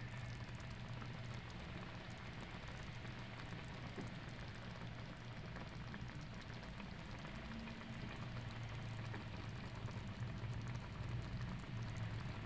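Food sizzling in a cooking pan, a steady fine crackle, over a low steady hum.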